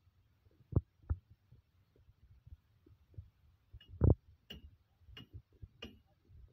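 Irregular low thumps and knocks from footsteps and handling of the filming phone, the loudest about four seconds in, with a few short sharper clicks after it.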